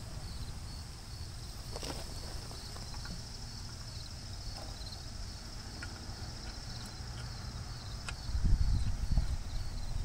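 Insects chirring steadily in a high band, over a low rumble, with a few light clicks as a bolt is worked by hand into the engine mount. About eight seconds in, a louder low rumble swells for a second or so.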